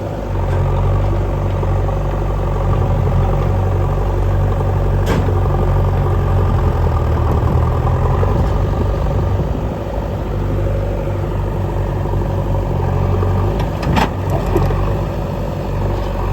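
Engine running steadily with a low hum, with a sharp click about five seconds in and another around fourteen seconds.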